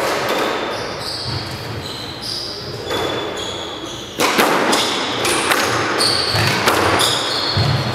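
Squash rally beginning with a serve about four seconds in: sharp cracks of the ball off rackets and the court walls, about two a second, with short sneaker squeaks on the hardwood floor between the hits. Before the serve, only a few quieter knocks.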